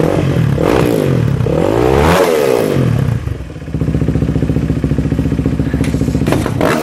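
Yamaha dirt bike engine running: revved up and down a few times in the first three seconds, then idling steadily.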